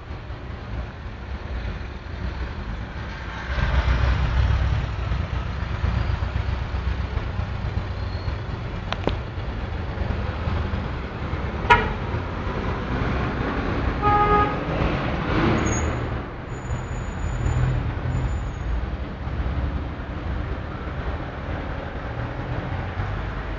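Heavy street traffic rumbling past: cars and trucks, with a short horn honk about halfway through and a longer horn a couple of seconds later.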